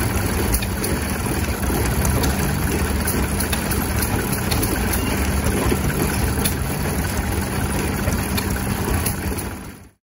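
An engine running steadily, with faint light clicks over it; the sound fades out near the end.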